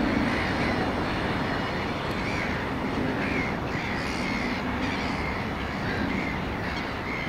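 2TE116U diesel locomotive's engine rumbling steadily and fading as the locomotive moves away, with birds calling repeatedly over it.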